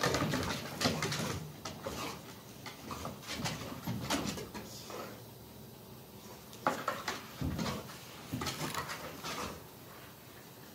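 Dogs play-fighting: growling and scuffling in several irregular bouts that die down near the end.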